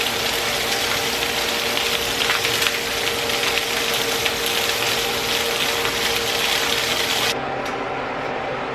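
Chicken browning in hot oil in a pan: a dense, steady sizzle with crackling pops over a steady hum. The sizzle cuts off abruptly about seven seconds in, leaving only a low hum.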